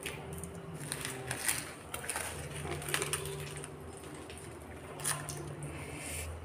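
Roasted banana leaf crinkling and crackling as it is peeled open by hand, in scattered faint crackles, over a faint steady low hum.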